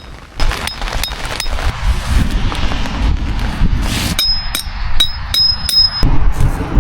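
Hammer striking metal tent stakes, a series of sharp knocks with a short metallic ring, quickening into a run of blows near the end. Wind buffets the microphone throughout.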